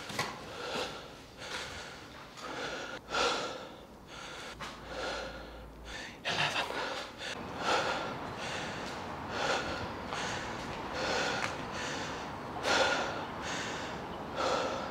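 A man breathing hard and steadily, in and out about once a second, out of breath from climbing flights of stairs.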